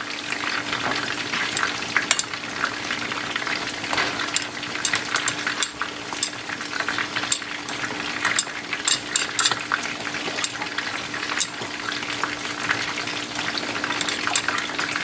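Whole fish frying in oil in a pan, a steady sizzle with frequent sharp crackling pops, together with napa cabbage boiling in a steel pot as it is stirred with chopsticks.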